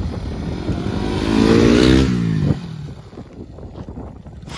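Motorcycle engine climbing in pitch to a loud peak about two seconds in, then falling away quickly, leaving a quieter low rumble.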